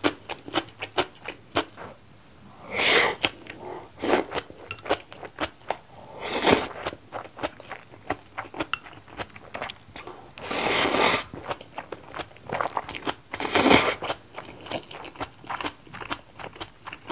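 Close-up eating of saucy stir-fried instant noodles: a steady run of wet chewing clicks and smacks, with about five louder slurps of noodles spread through.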